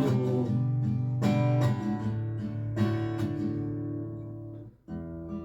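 Acoustic guitar strumming chords in an instrumental passage, each strummed chord left to ring. The playing dies away to almost nothing just before five seconds in, then starts again.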